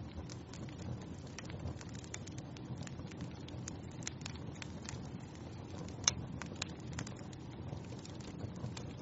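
Wood fire in a fireplace crackling: a steady low rumble of flames with irregular small snaps throughout and one louder pop about six seconds in.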